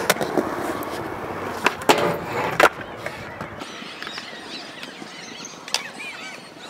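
Skateboard wheels rolling on concrete, with a few sharp clacks of the board about two seconds in; the rolling then fades and grows quiet as the board moves away.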